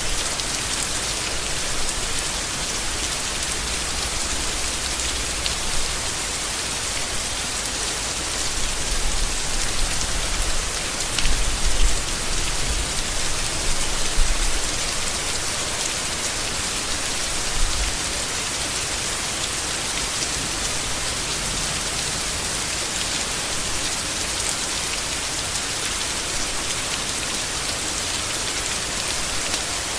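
Steady heavy rain falling on leaves, an even hiss, with a few brief low rumbles in the middle.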